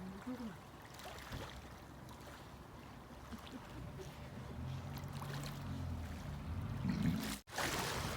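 Small sea waves washing and lapping onto a beach, with a faint low hum under them and a brief break in the sound near the end.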